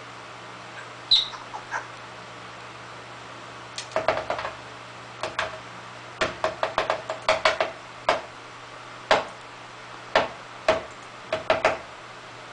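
Pet parrot making short, sharp imitation coughs, some single and some in quick runs, with one short high squeak about a second in.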